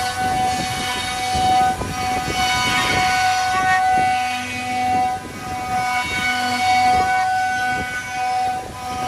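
Spindle of a Holztek D2400-CNC lock and hinge boring machine cutting into the edge of a door panel: a steady high whine over the noise of the cut, swelling and dipping in loudness.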